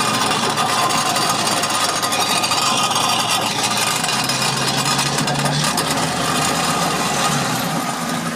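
A car being driven on a bare wheel rim: steady metallic grinding and scraping of the rim on the road surface, mixed with engine noise.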